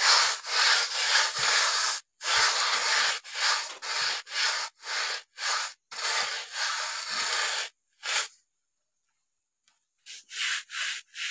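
Dogs eating from bowls on gravel: an irregular run of scraping, rubbing noises, a pause of about two seconds, then a few short scrapes near the end.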